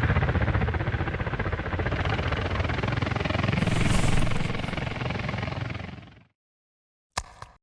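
A dense, rapid fluttering noise with a deep rumble underneath, fading away about six seconds in, then one brief sharp sound near the end.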